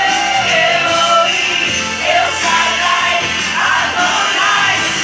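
A group of women singing a hymn together from hymnbooks.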